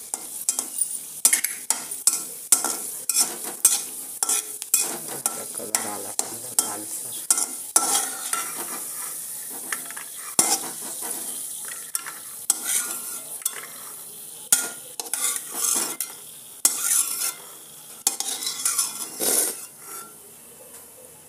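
Cashews sizzling as they fry in ghee in an iron kadhai, while a metal spatula stirs them, scraping and tapping on the pan in quick repeated strokes that grow sparser near the end.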